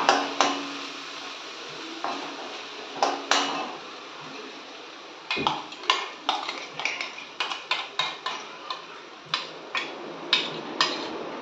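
A steel spoon scraping and tapping against the inside of a steel mixer-grinder jar to empty out a thick nut paste, in sharp irregular clinks that come thick and fast from about halfway through. A steady sizzle of onion paste frying in the pan runs underneath.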